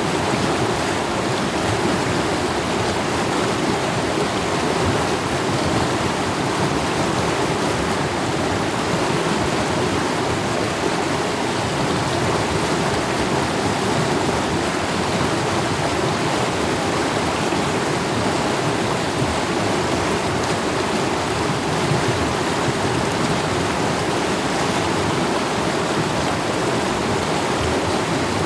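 Mountain stream rushing steadily over rocks, a continuous even wash of water noise.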